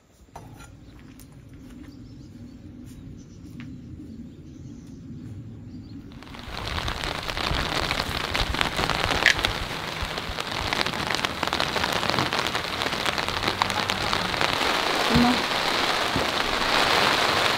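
A faint low rumble, then about six seconds in, the steady, loud hiss of heavy rain starts suddenly and continues, with a few sharper drop hits.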